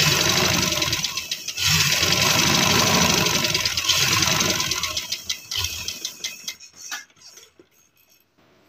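Sewing machine running steadily as it stitches a long seam through cotton fabric, with a brief break about a second and a half in. The machine slows and stops about five to six seconds in, followed by a few light clicks. The long, heavy stitch is a gathering line meant to be pulled into pleats.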